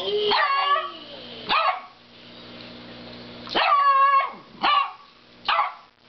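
Dog barking about five times, the first and fourth barks drawn out into longer yowling calls.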